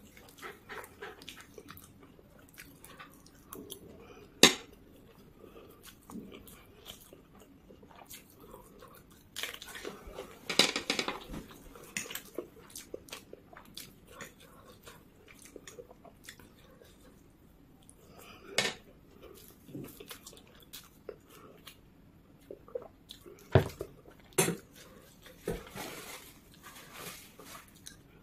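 Close-miked chewing of Maggi instant noodles, with a fork clicking and scraping against the plate. There are scattered short clicks, a few of them sharp and loud, and a denser noisy patch about ten seconds in.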